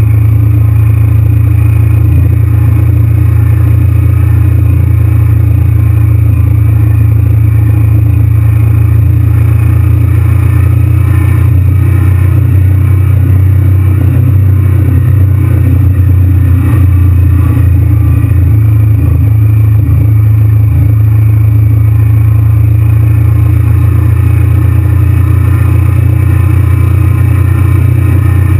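Honda VTR1000's V-twin engine running steadily while the motorcycle cruises at around 3,500 rpm.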